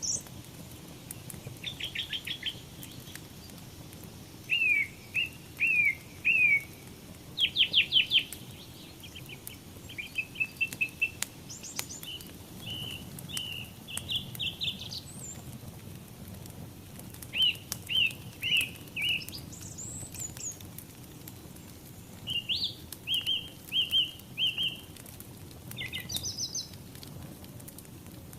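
Songbirds singing short repeated chirping phrases, one after another with brief gaps, over the faint crackle of a wood fire.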